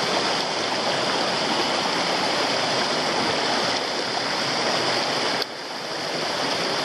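Loud, steady rush of a rocky mountain stream cascading over boulders in whitewater. The level drops suddenly about five and a half seconds in, then builds back.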